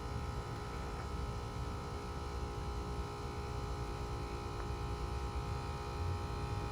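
Outdoor HVAC condensing unit running steadily: a compressor-and-fan hum with several steady tones over a low rumble.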